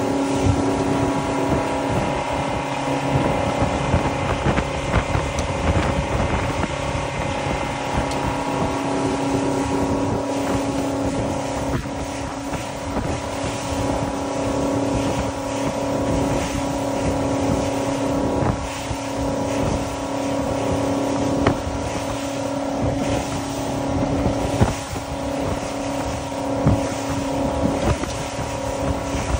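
Motorboat engine running at a steady cruising speed, a constant hum under the rush of water past the hull, with wind buffeting the microphone.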